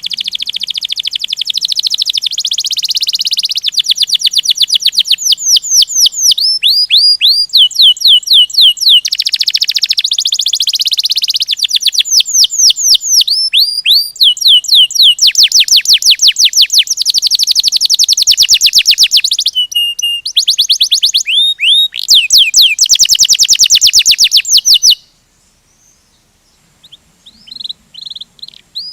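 Domestic canary singing a long rolling song of rapid trills, each a fast run of one repeated note, switching from one trill to the next. It breaks off suddenly near the end, and a few softer chirps follow.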